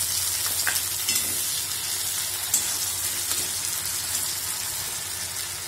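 Sliced onions and freshly added chopped tomato sizzling steadily in hot mustard oil in a metal kadai, with a couple of faint clicks. The sizzle eases slightly toward the end.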